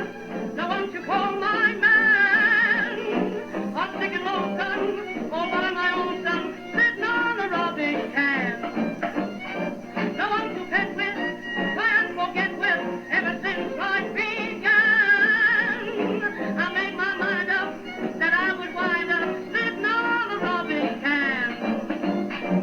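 Mid-1930s Remington Model 250 tube radio playing music through its speaker: a singer with a wavering voice over instruments, thin in tone with no deep bass or bright top.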